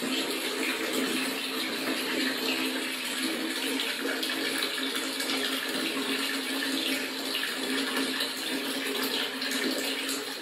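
Water running steadily from a wall tap into a galvanized metal bucket, filling it.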